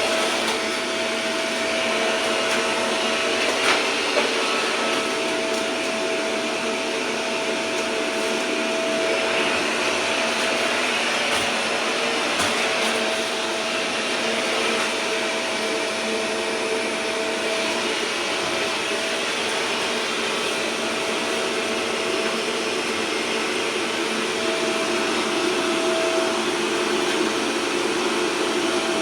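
Vacuum cleaner running steadily, its motor giving a constant whine over a dense rush of air. There are two brief knocks about four seconds in.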